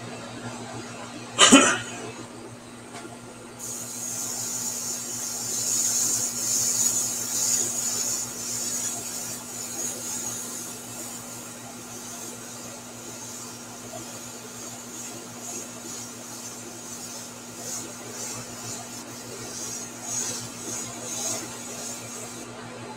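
Airbrush hissing as it sprays paint, a steady high hiss that starts about four seconds in and stops shortly before the end. A loud knock comes about a second and a half in.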